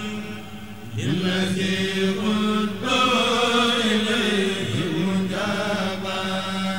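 A group of voices chanting a Mouride khassida in Arabic, a sung Sufi poem, with long held notes in phrases of one to two seconds and short breaks between them.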